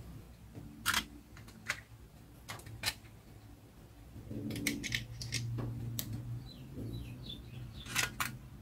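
Irregular sharp clicks and taps from handling a metal watercolour palette tin and its plastic half pans, with a cluster of clicks about a second in and another near the end, over a low steady hum.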